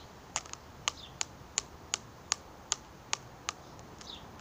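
Small plastic Pokémon figurines knocked together in the hands, giving about ten sharp clacks a little under three a second that stop near the end.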